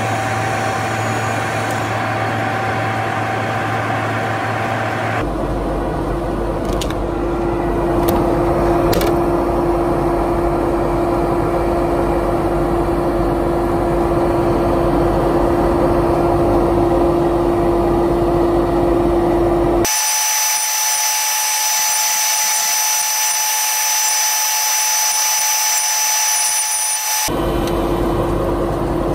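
Small wood lathe running steadily with resin pen blanks spinning on a pen mandrel, a constant motor hum with a held tone. The hum's pitch jumps abruptly about five, twenty and twenty-seven seconds in.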